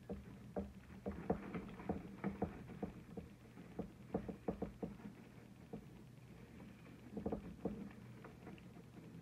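Ribbon being handled and tied into a bow: faint, irregular rustles and small taps in clusters, over a steady low hum.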